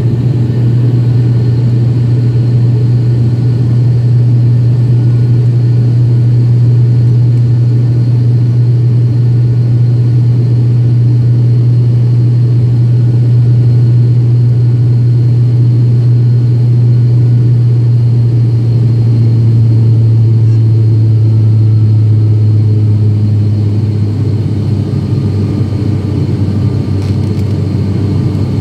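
Cabin drone of an ATR 72-600's Pratt & Whitney PW127M turboprops and six-blade propellers during the climb-out, heard from a seat beside the engine: a loud, steady, low hum. About twenty seconds in, the hum drops in pitch and eases a little, typical of the propellers being slowed from takeoff to climb power.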